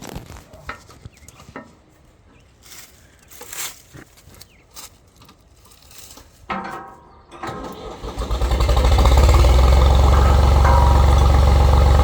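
Tractor engine cranked over about six and a half seconds in, catching about a second later and then running steadily and loudly. Before that, scattered light knocks and clicks.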